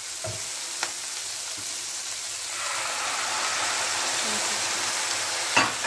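Food sizzling in a hot pan, the sizzle growing louder about halfway through, with a few light knocks of a utensil.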